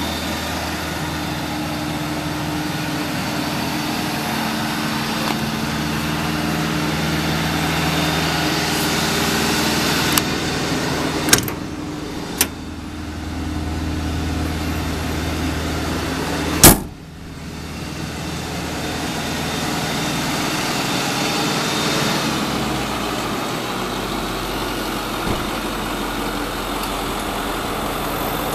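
2010 Ford Super Duty bucket truck's engine idling steadily. About halfway through come two sharp metallic clicks, and a few seconds later one loud bang, the sound of the utility body's compartment latches and a compartment door being shut.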